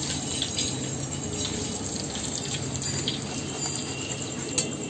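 Hot oil sizzling in a wok as fried chicken momos are drained in a wire strainer held above it, with a sharp click a little before the end.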